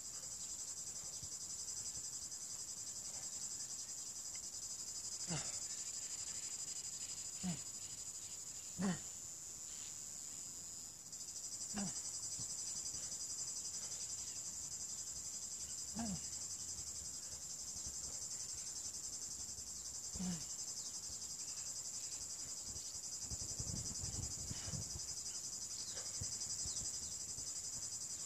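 Steady, continuous high-pitched buzzing of a cicada chorus. Short, forceful exhales from the kettlebell lifter cut in every few seconds.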